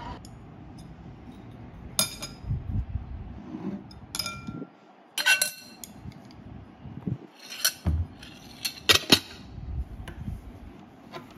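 Tableware clinking: a metal spoon and chopsticks knocking against a ceramic bowl, and the ceramic bowl stacked into a glass bowl. There are about half a dozen sharp clinks, some with a brief ring.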